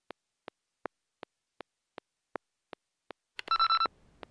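Small electronic metronome clicking steadily, about two and a half clicks a second, then a short high electronic beep near the end.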